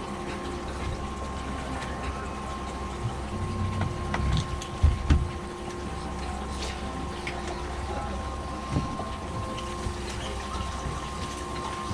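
A fishing boat's motor or pump runs at a steady hum, with water sounds around the hull. A few dull knocks come about four to five seconds in.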